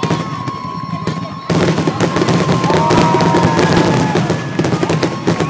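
Fireworks display going off in a rapid series of bangs. About a second and a half in it jumps suddenly to a louder, dense crackling of many shells at once.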